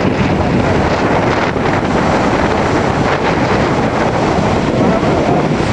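Strong gusting wind of a windstorm blowing hard across the microphone: a loud, steady rush.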